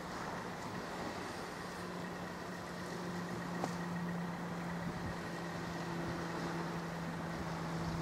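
Electric motor and gear drivetrain of a Traxxas TRX-4 RC rock crawler whining at a steady pitch as it crawls up a dirt slope, over a constant hiss.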